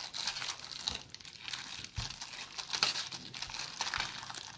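Black plastic foil sachet crinkling and crackling in irregular bursts as it is squeezed and pulled at by hand to get it open; it is hard to open.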